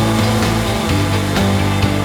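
Background music with sustained tones and a light beat; the chord changes about a second in.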